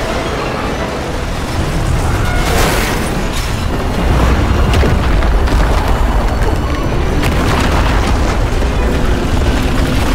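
Film sound effects of an earthquake: a deep, continuous rumble with crashes and booms, heavier from about four seconds in, mixed with music.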